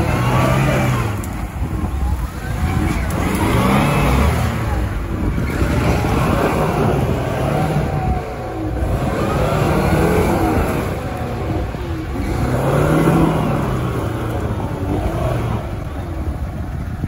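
Lada Niva engine revving, its pitch rising and falling back over and over, roughly every three seconds, as the car is driven off-road.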